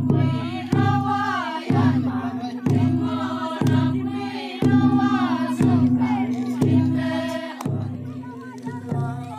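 Traditional Maring dance music: voices singing in chorus over a low struck beat about once a second, with a steady ringing tone beneath.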